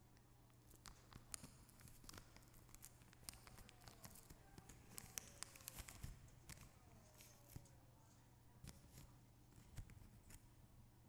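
Faint crinkling and clicking of a small plastic packet being opened and handled as it is emptied, over a low steady hum.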